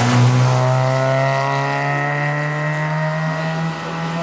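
Fiat Seicento rally car's engine pulling hard at high revs as it passes and drives away, its note climbing slowly in pitch. The note dips briefly near the end, then picks up again.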